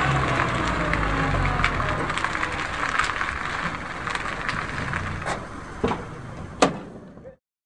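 Small van driving away over gravel: low engine hum and tyres crunching on loose stones with many small pops, fading as it pulls away. A few sharper clicks come near the end, the last the loudest, before the sound cuts off suddenly.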